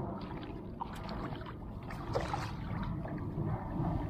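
Water lapping against a plastic kayak hull with a low wind rumble on the microphone, and a few faint short ticks scattered through it.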